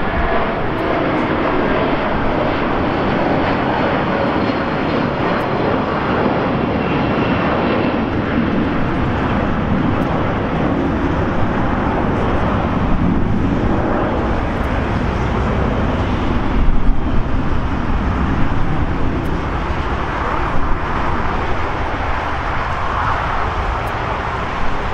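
Jet engines of a Boeing 757 at climb power as the airliner departs: a steady, continuous jet roar, with a few brief louder bumps about two-thirds of the way through.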